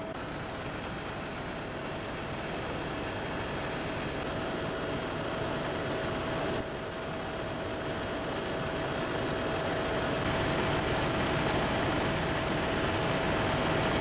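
Turbine helicopter in flight, heard from inside the cabin: a steady rush of rotor and engine noise with a constant high whine. The sound jumps slightly about six and a half seconds in.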